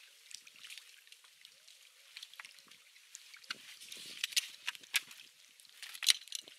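Water splashing and dripping in quick, irregular small splashes, with louder splashes about four, five and six seconds in.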